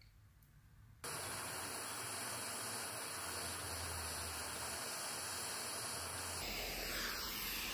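Steady hiss of a handheld gas torch's blue flame heating a copper petal for soldering. It starts abruptly about a second in, and its tone shifts slightly near the end.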